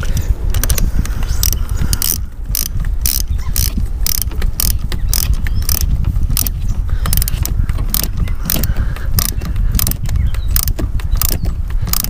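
Socket ratchet clicking as it tightens the negative battery terminal clamp nut, in a series of short strokes of a few clicks a second, over a steady low hum.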